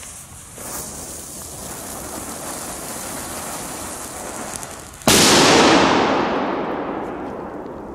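Funke Funkenschlag 3 Category F3 firecracker (2 g red flame plus 3 g flash banger): the red flame charge hisses steadily for about four seconds. Then the flash banger goes off about five seconds in with a single very loud bang, and its echo fades away over about three seconds.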